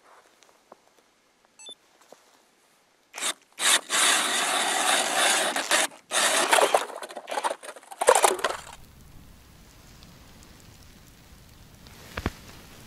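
Ice auger blades cutting into pond ice: loud scraping, crunching spells that start about three seconds in, with short breaks, and stop near nine seconds. After that only a faint low rumble, with one sharp click near the end.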